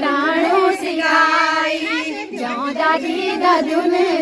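Women's voices singing a folk song in the local hill dialect, with one note held for about a second near the middle.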